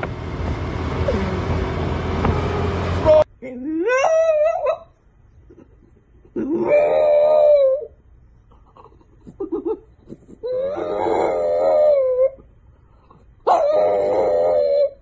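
French bulldog howling: four drawn-out howls a couple of seconds apart, the first rising in pitch, with a few short whimpers between them. For about the first three seconds, before the howls, there is a steady rush of wind and street noise.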